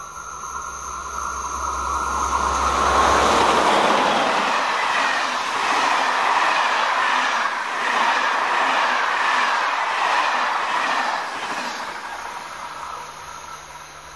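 A locomotive-hauled passenger train passing close by. A whine and rumble build as the locomotive nears, then the coaches' wheels click over the rail joints, fading away near the end.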